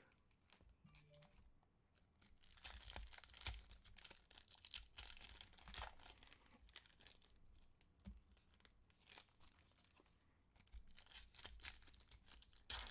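Foil trading-card pack wrapper being torn open and crinkled by hand, faint, in two stretches of irregular crackling, with a sharper crackle near the end.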